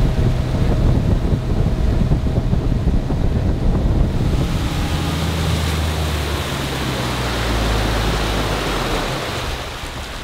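Boat motor running under way, with steady wind and rushing water over it; the motor eases off near the end.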